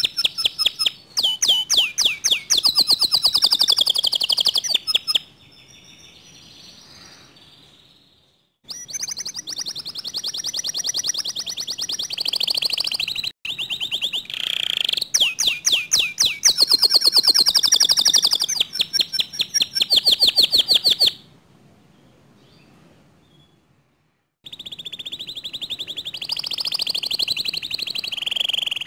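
Domestic canary singing: fast trills and rapidly repeated notes in long phrases, broken twice by pauses of a few seconds.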